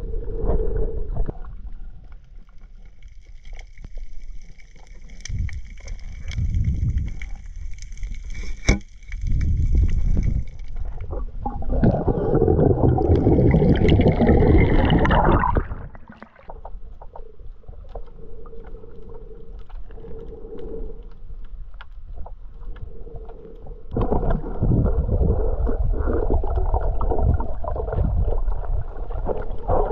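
Underwater sound picked up by a camera on a swimming snorkeler: water rushing and gurgling past the microphone in uneven surges, loudest about halfway through. A faint steady high whine runs for several seconds early on.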